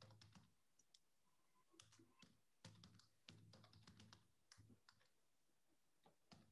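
Near silence with faint, irregular key clicks from typing on a computer keyboard.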